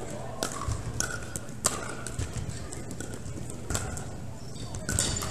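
Pickleball paddles striking the hollow plastic ball, with the ball bouncing on a hardwood gym floor: a string of sharp pops at uneven intervals, some with a short ringing tone.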